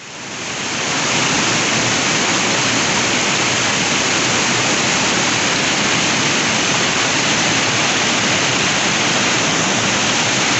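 Waterfall: falling water rushing steadily, fading in over about the first second.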